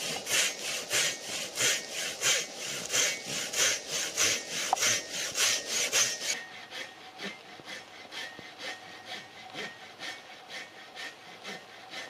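Large Silky Katanaboy folding saw cutting into a fresh log in steady back-and-forth strokes, about three a second. About six seconds in, the strokes turn quieter and duller.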